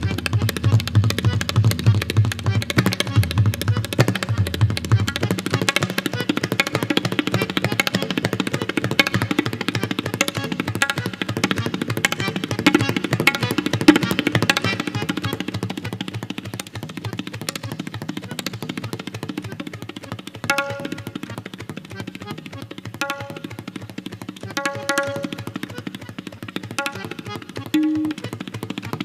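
Tabla played fast: dense rapid strokes on the dayan and bayan in a galloping horse-gait rhythm. In the first few seconds the bayan pulses low and steadily under the strokes; later the dayan rings out in short runs of clear pitched strokes.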